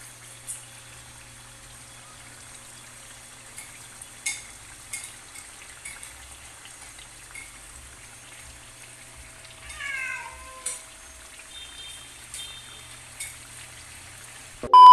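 Pork steak pieces sizzling gently in sauce in a wok as the liquid cooks down, with scattered sharp pops of spitting fat. About ten seconds in, a short falling, meow-like cry is heard, and right at the end a loud electronic beep starts.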